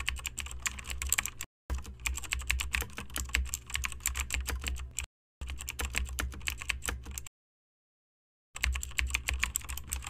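Keyboard typing sound effect: rapid key clicks in stretches that cut off abruptly, with about a second of silence in the latter part before the typing resumes.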